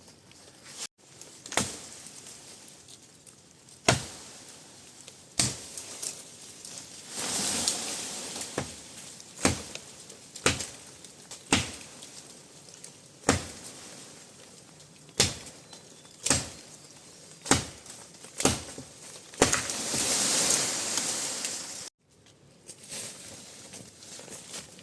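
A series of sharp knocks, about one a second and unevenly spaced, with two stretches of rustling noise in between.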